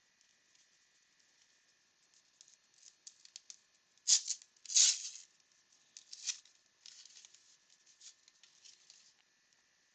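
Crinkling and rustling of a trading card pack's foil wrapper and cards being handled, in scattered bursts with the loudest crinkles about four and five seconds in and again a little past six seconds.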